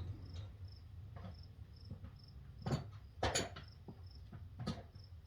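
Scattered metal clinks and knocks of hand tools and a bearing puller being fitted and tightened inside a tractor final drive housing, the loudest two near the middle. A cricket chirps steadily in the background, about twice a second.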